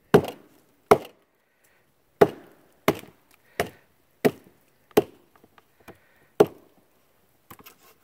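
Batoning with a KA-BAR BK7 knife: a wooden baton knocks on the knife's spine to drive it through a log and split it. About eight sharp knocks come at uneven intervals, with a few faint clicks near the end.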